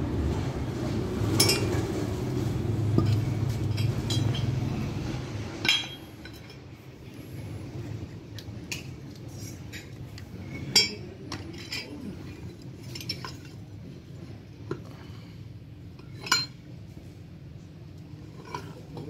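Steel parts of a tractor starter motor clinking and knocking as they are handled and fitted together: armature, pinion drive and housings. A steady low hum sounds for the first five seconds or so, then stops with a click, leaving scattered clinks.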